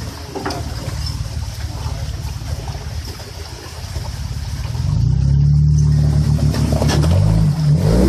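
Jeep Wrangler's engine working under load as it crawls up an iced rock ledge, growing louder about five seconds in, then revving up and down near the end.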